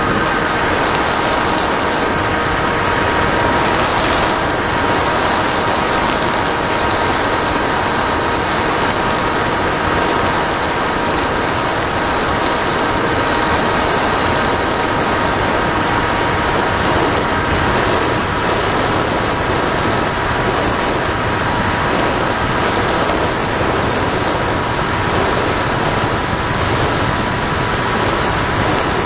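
Firstar 2000 FPV model plane in flight, picked up by its onboard camera: the electric motor and propeller make a steady high whine over a rush of wind. The whine climbs a little in pitch about two-thirds of the way through, and again near the end.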